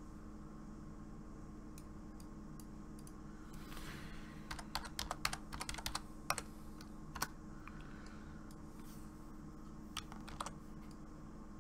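Typing on a computer keyboard: a quick run of keystrokes about four to seven seconds in, then a couple more clicks near the end.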